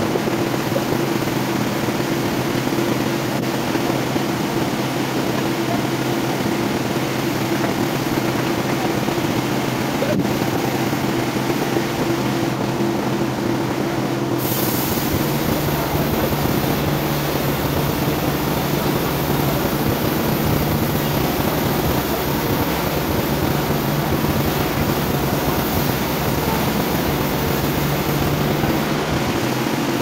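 Large sawmill band saw running steadily while a timber slab is fed through it on the carriage. About halfway through the sound grows fuller, with more hiss up high and more low rumble.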